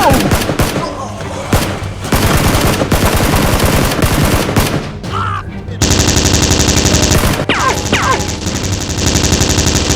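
Rapid automatic gunfire sound effects in two long bursts: one starting about two seconds in, and a louder one starting about six seconds in.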